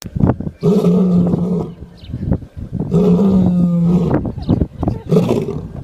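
Lion snoring: two long, loud snores about two seconds apart, then a shorter one near the end.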